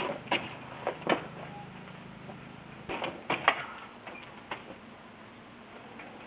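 A few sharp clicks and knocks, some in quick succession about three seconds in, over a faint steady low hum that fades out partway through.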